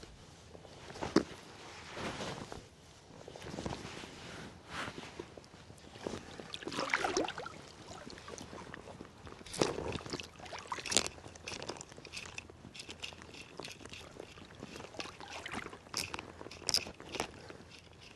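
Irregular footsteps with crunching and scraping, plus scattered sharp knocks and rustles.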